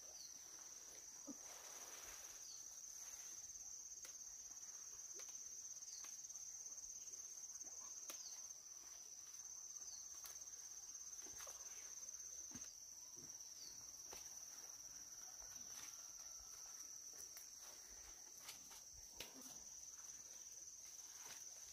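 Faint, steady high-pitched trilling of insects, unbroken throughout. Scattered light clicks and rustles from climbing in the tree, and a few footsteps near the end.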